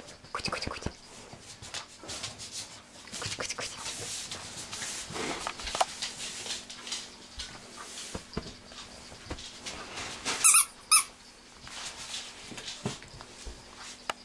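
Puppy moving about on soft bedding, with soft rustling and small knocks throughout, and two short, high, loud squeaks close together about ten and a half seconds in.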